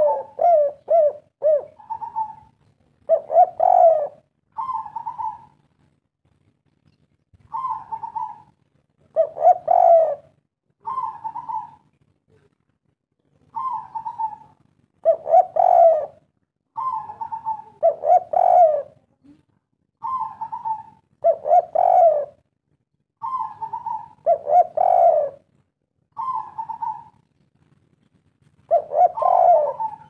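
Spotted dove cooing in the 'kuk 3' local song style. The phrases repeat every few seconds, each pairing a short higher coo with a longer, louder, lower coo, with a quick run of short notes at the start.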